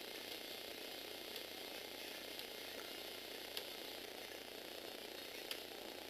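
Small Lego Power Functions electric motor whirring as its gear drives a Lego Technic pin rack along a beam track. A sharp click comes every second or two.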